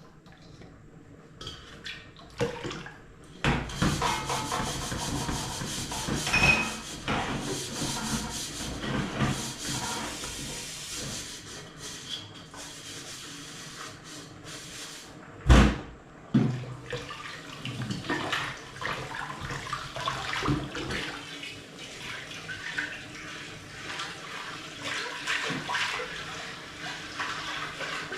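Hand-washing a new cooking pot: water sloshing and splashing with scrubbing and small clinks throughout, and one sharp knock about halfway through.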